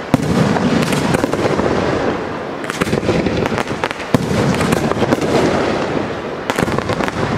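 Aerial fireworks display: shells bursting in a dense, unbroken barrage of bangs and crackling, with clusters of sharper bangs near the start, in the middle and near the end.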